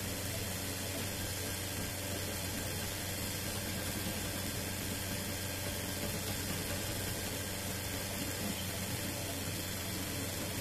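Home-built 3D printer running mid-print: a steady whir from its cooling fans and stepper motors, with a low hum underneath.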